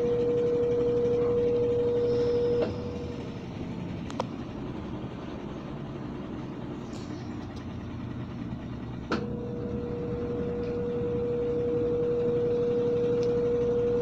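Brastemp 12 kg top-loading washing machine in its spin cycle: a steady motor whine over the rumble of the spinning drum, cutting off with a click about two and a half seconds in, then a click and the whine back about nine seconds in. The tightly packed load is making the machine vibrate, which the owner thinks is a slightly unbalanced load.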